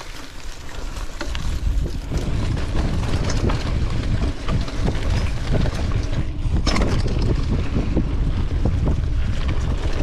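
Mountain bike riding fast down a dirt trail: wind buffeting the microphone over a steady tyre rumble, with scattered knocks and rattles from the bike over bumps. It builds up about a second in.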